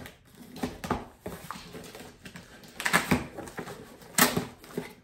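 Scissors slitting the packing tape on a cardboard box, with short scraping and rustling bursts as the blade and hands work the cardboard. The loudest bursts come about three seconds in and again a second later.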